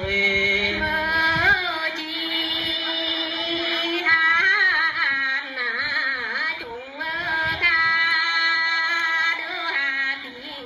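Women's voices singing a slow festival greeting song, with long held notes and wavering, ornamented bends.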